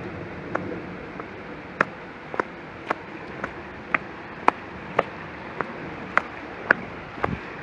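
Footsteps of someone walking at a steady pace on a hard, gritty path, a sharp tap about twice a second over a steady background hiss.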